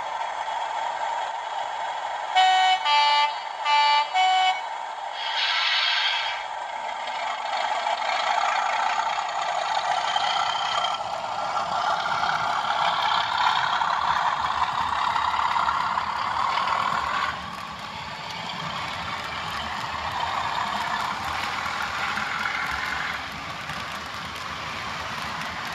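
Hornby TTS sound decoder in a model Class 37 diesel locomotive, playing through a small speaker: the diesel engine runs, with four short horn toots a couple of seconds in. The engine sound then builds and eases off again past the middle.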